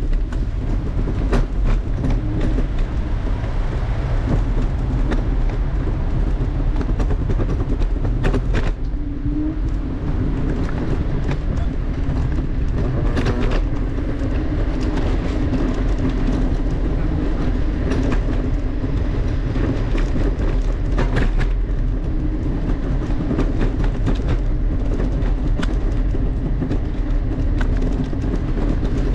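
Steady rumble of a ride over city pavement, with frequent rattles and clicks from a camera mounted on the moving vehicle.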